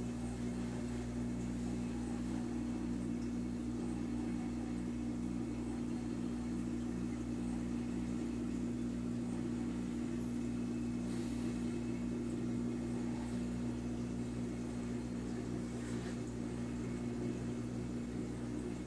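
Steady low mechanical hum of a reef aquarium's running equipment, with a faint even flutter under the drone.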